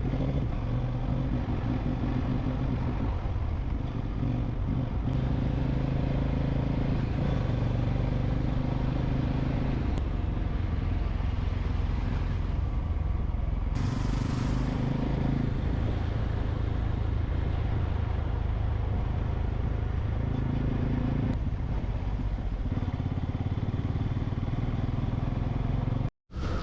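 Motorcycle engine running at a steady cruise, with wind and road noise. A brief dropout near the end.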